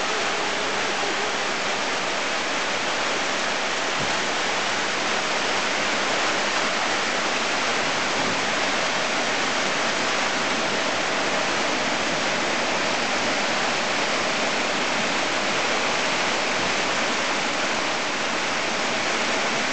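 Heavy rain pouring down in a steady, even hiss, with water streaming off the edge of a roof.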